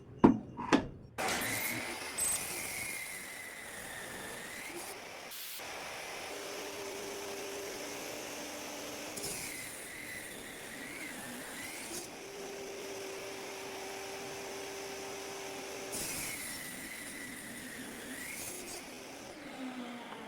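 A few sharp knocks, then a table saw running steadily, its tone dipping and recovering about three times as the blade takes load during cuts.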